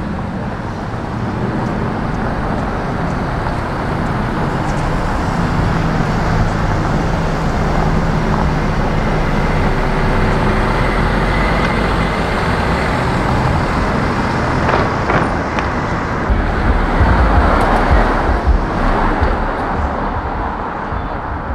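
Bentley Bentayga SUV's engine running as it drives slowly away, over steady street traffic noise. A louder low rumble comes in the last few seconds.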